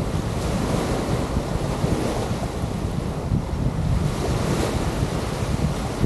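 Waves washing onto a beach, a steady surging hiss, with wind buffeting the microphone in a low rumble.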